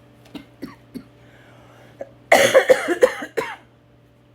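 A woman coughing, a short fit of about five hard coughs in quick succession starting about two seconds in, from a lung illness that makes her cough whenever she talks. A few faint handling clicks come before it.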